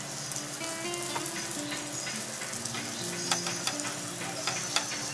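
Shell pasta with scrambled egg and peppers sizzling in a nonstick frying pan while a silicone spatula stirs it. There are sharp clicks of the spatula against the pan, more of them in the second half, over soft background music with held notes.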